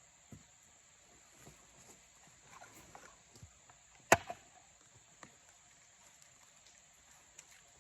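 Hands rustling and scraping through sweet potato vines and garden soil, with one sharp click or snap about four seconds in. Crickets chirr steadily and high in the background.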